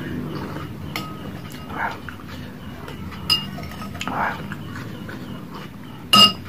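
Metal spoon clinking against a ceramic soup bowl three times, the last clink the loudest and ringing, as the last of the broth is scooped up. Between the clinks come softer sounds of the broth being slurped from the spoon.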